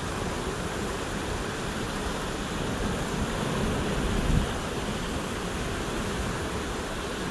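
Steady rushing of river water, with a brief low thump about four seconds in.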